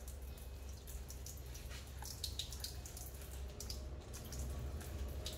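Kitchen faucet running in a thin stream onto a wet puppy in the sink, with water dripping and splashing in scattered small spatters over a low steady hum.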